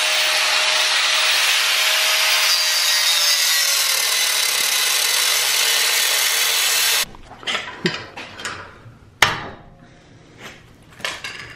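Handheld angle grinder cutting through the metal tubing of a UTV roll cage: a loud, steady grind, the motor's whine dipping slightly as the disc bites. It cuts off suddenly about seven seconds in, followed by a few knocks and clatter.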